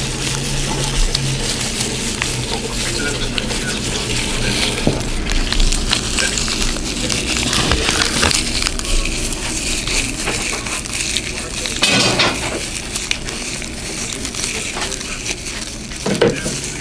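Dry crackling and rustling as gloved fingers crumble and sprinkle dried calendula petals over soap, over a steady hiss, with a couple of sharper rustles late on.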